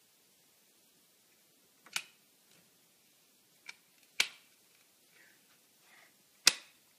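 A cat-food can lid clinking sharply against a stone tile floor as a kitten paws and noses it, four times, the last the loudest, with faint scuffs in between.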